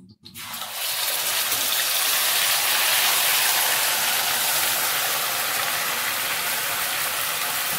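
Marinated mutton, wet with yogurt and spice pastes, hitting hot mustard oil and ghee in a pot and sizzling loudly. The sizzle builds within the first second and then holds steady.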